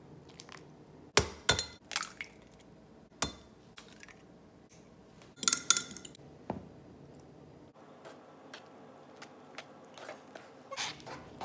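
Clinks and knocks of a fork and a glass measuring cup: a few sharp separate knocks in the first seconds, then a quick cluster of clinks around the middle as a fork beats eggs in the glass cup. After that come lighter, evenly spaced taps as the utensil stirs brownie mix in a plastic bowl.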